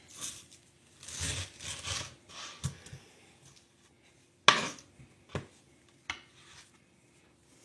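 Knife cutting through a ripe pineapple on a cutting board: a couple of slicing strokes, then a sharp knock of the blade or fruit on the board about four and a half seconds in, with lighter knocks after it.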